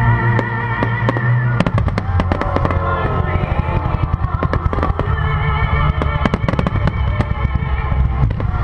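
Fireworks display finale: a dense, rapid volley of bangs and crackles that starts about one and a half seconds in, over loud music playing with the show.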